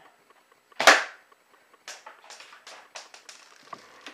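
Airsoft sniper rifle firing once: a single sharp pop about a second in, followed by faint clicks and handling rustles.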